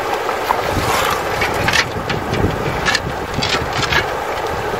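Shallow river rushing steadily over stony riffles, with long-handled shovels scraping and knocking against streambed stones and gravel several times as the bed is dug.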